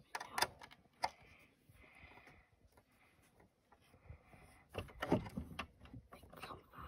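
Plastic model-kit parts handled and pressed together: a few quiet clicks and knocks of hard plastic, busiest about five seconds in, with faint rustling between.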